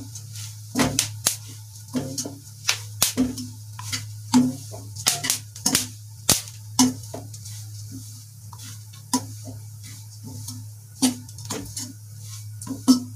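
Wire-mesh skimmer scraping and clinking against an aluminium kadhai in irregular strokes as melon seeds and grated dry coconut are stirred while dry-roasting. A steady low hum runs underneath.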